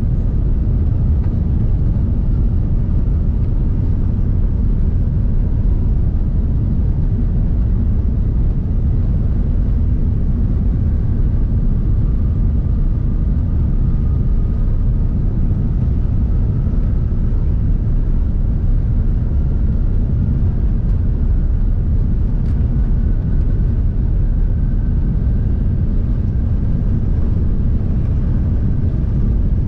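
Cabin noise inside an Airbus A380 accelerating down the runway for takeoff: a loud, steady, deep rumble from the engines at takeoff power and the rolling gear, with a faint engine whine that slowly rises in pitch as the jet gathers speed.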